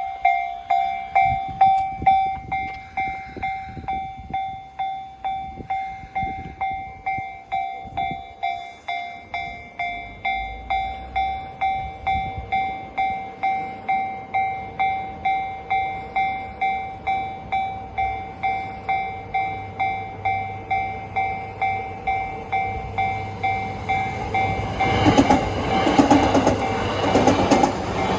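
Railway level-crossing alarm bell ringing steadily at about two strikes a second. About 25 seconds in, a Yamanote Line train reaches the crossing and its running noise rises under the bell.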